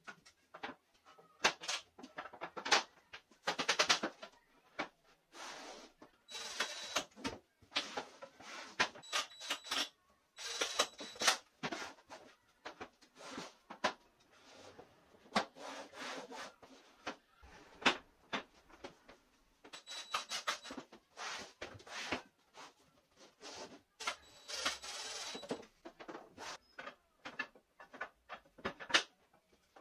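Wooden dowels and frame rails of a folding wooden rack being handled: dowels sliding and rubbing in their holes, with many light wooden knocks and clicks as the parts are fitted and folded.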